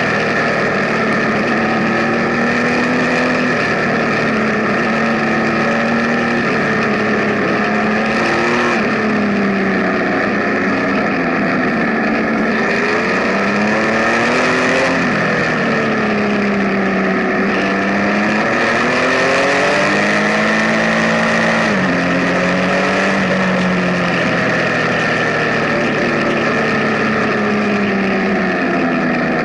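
Benelli Tornado Tre 1130 TNT's inline three-cylinder engine running under way. Its pitch rises and falls smoothly several times as the throttle is opened and eased off.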